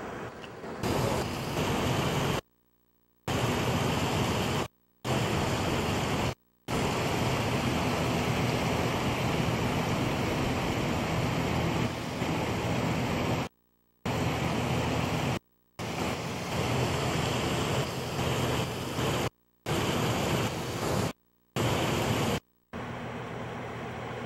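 Floodwater rushing across a road and wash, a loud, steady rushing noise of water. Several times it cuts off abruptly into brief silences and then resumes.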